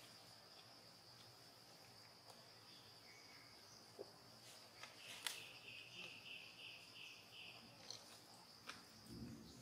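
Faint, steady high-pitched insect drone in forest. Midway through there is a short run of about seven quick chirps, roughly three a second, and a few light ticks.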